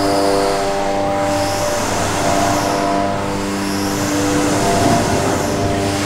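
The 900 kW hydraulic wave machine of a large wave flume running. Its hydraulic drive gives a steady hum of several tones together, over a rushing hiss that swells and fades about every two seconds.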